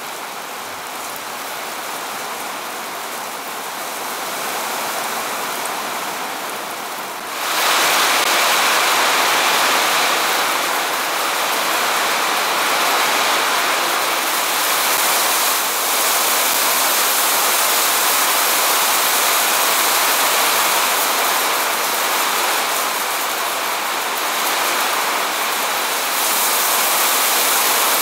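Rain falling steadily. About seven seconds in it turns abruptly louder and denser, the hiss of a heavy downpour.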